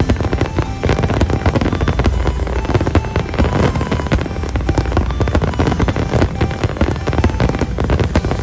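Fireworks display: a dense, continuous barrage of bangs and crackles with heavy low booms, many per second. Music plays underneath.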